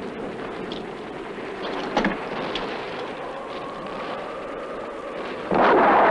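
War-film battle soundtrack: a steady background rumble with a single sharp crack about two seconds in, then a sudden loud burst of gunfire near the end.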